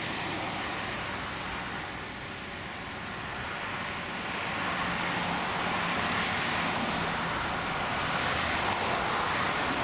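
Road traffic passing: a steady rush of vehicle and tyre noise that grows louder about halfway through.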